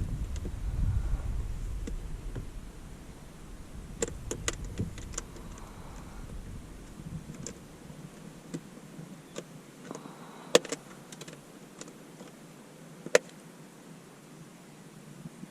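Scattered sharp clicks and taps from small objects being handled, the two loudest about ten and thirteen seconds in. Low wind rumble on the microphone in the first few seconds.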